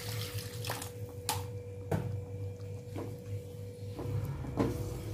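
Wooden spatula scraping and knocking against an aluminium wok as a thick spice paste is stirred, about half a dozen short strokes, with water poured in from a plastic cup near the start. A steady low hum runs underneath.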